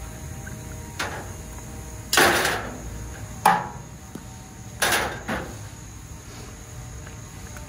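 Sharp knocks and clatters from scrap copper pipe being worked while it is stripped and cleaned: five hits over about four seconds, the three loudest each ringing briefly.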